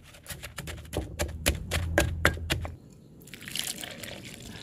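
Wooden pestle pounding soft green leaves in a clay mortar, rapid strokes about six a second, stopping a little under three seconds in. Then water is poured into the mortar over the pounded leaves, a splashing hiss.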